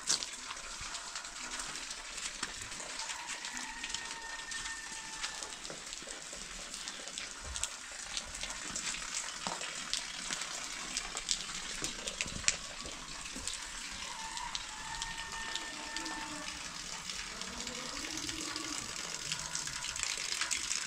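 Steady hiss of running and dripping water, with many small drips and taps scattered through it.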